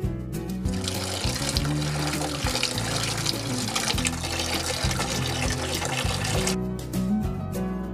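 Water from a garden hose pouring and splashing into a plastic stock tank. It starts about a second in and stops shortly before the end, over background music.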